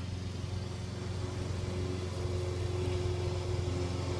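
Steady low mechanical hum with a faint steady tone above it, like a motor running continuously.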